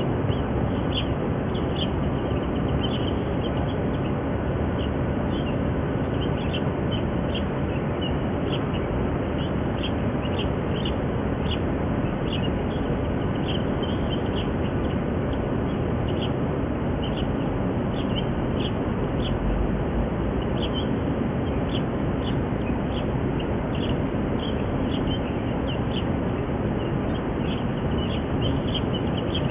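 Mallard ducklings peeping: short high peeps, several a second, irregular and continuous, over a steady low background rumble.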